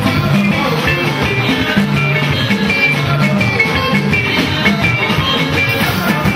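A live band playing with electric guitars and a drum kit: busy picked guitar lines run over a steady bass line and drums.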